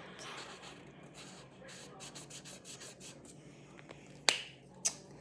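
Colouring on paper: quick scratchy rubbing strokes of a colouring tool, bunched together in the middle. Two sharp clicks near the end are the loudest sounds.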